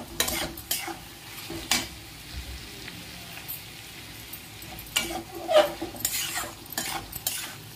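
Metal spatula stirring and scraping rugda wild mushrooms and onions around a hot, oiled metal kadhai, over a steady sizzle of frying. The scraping strokes come at the start and again more busily in the last few seconds, with sizzling alone in between.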